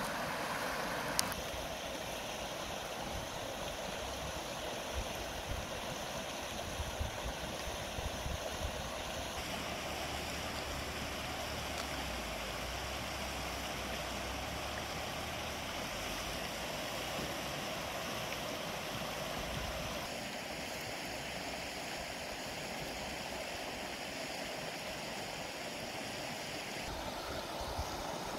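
Steady rushing of a flowing stream, its tone shifting abruptly a few times.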